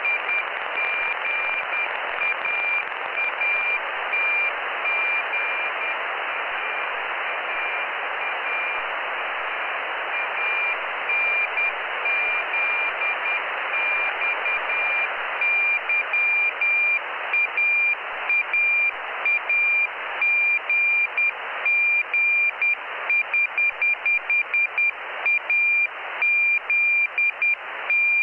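Morse code telemetry beacon from the Jugnu CubeSat, heard as a receiver's CW audio: a single high tone keyed on and off in dots and dashes over steady band-limited receiver hiss. About halfway through, the keyed tone comes through more strongly and the loudness jumps with each element.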